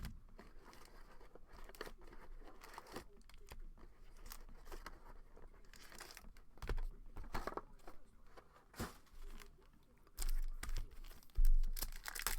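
Trading card pack wrapper being torn open and crinkled, with cards being handled. The rustling grows louder near the end, with a few low bumps.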